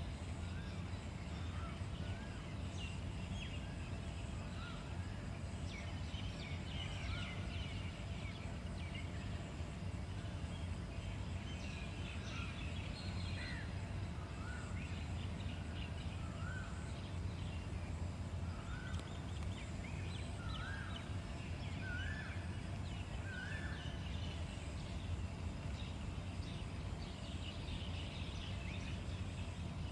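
Birds chirping and calling in a morning chorus: many short high chirps, with one short call repeated every second or two through much of the time, over a steady low rumble.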